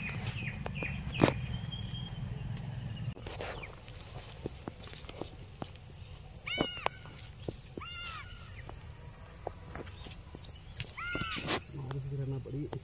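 Crows cawing: short, arched calls in three bouts a second or two apart, over a steady high-pitched insect drone that sets in about three seconds in. Sharp clicks from handling the fishing line come and go.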